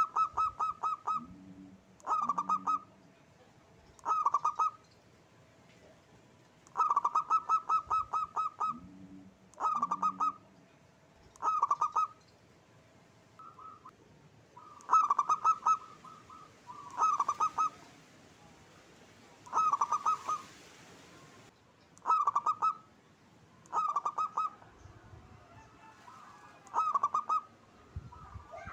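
Zebra dove (perkutut) singing: short bursts of rapid staccato cooing notes, repeated about every two seconds. Twice there is a pair of deeper, lower notes, near the start and about nine seconds in.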